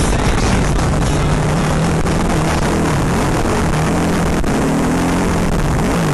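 Yamaha Rhino side-by-side's single-cylinder engine running hard at speed over a rough dirt track. Its pitch rises and falls repeatedly with the throttle, under a steady rush of wind and track noise.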